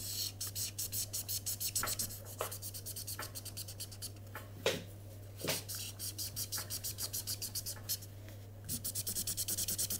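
Felt-tip marker colouring on paper: fast back-and-forth scratchy strokes, about five or six a second, pausing briefly about eight seconds in and then picking up again. Two louder knocks come about halfway through.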